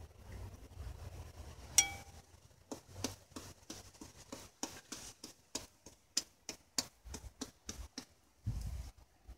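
Kitchen knife cutting into a soft, ripe papaya held in the hand, a run of short knocks about two or three a second. One sharp ringing clink about two seconds in, and a duller thump near the end.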